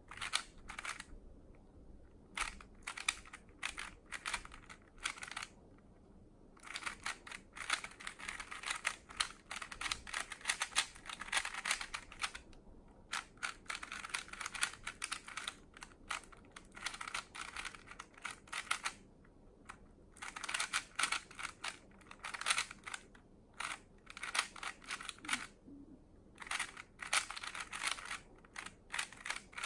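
GoCube Edge smart cube's plastic layers clicking and clacking as they are turned rapidly in a speed solve, in fast flurries of turns broken by several short pauses.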